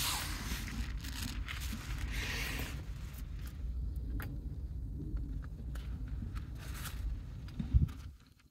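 Packaging for a new iridium spark plug being torn open and crinkled, in a few short bouts of rustling, with a dull knock near the end.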